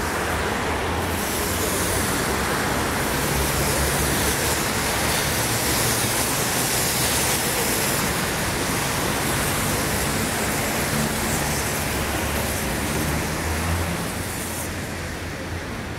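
Traffic on a rain-wet city street: tyres hissing on the wet road with a low engine hum, the hiss swelling about a second in and easing off near the end, over steady rain.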